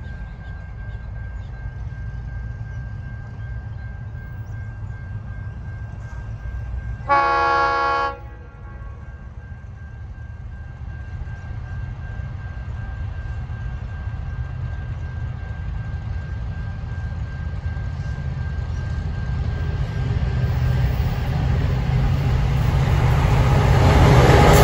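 Approaching diesel freight train led by G-class locomotives G532 and G515: a steady low engine rumble that grows louder over the last several seconds as the train arrives. About seven seconds in, the locomotive horn gives one blast of about a second.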